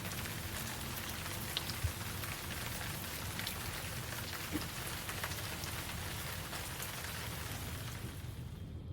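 Steady rain falling, an even hiss with scattered individual drops ticking, and a soft knock about two seconds in.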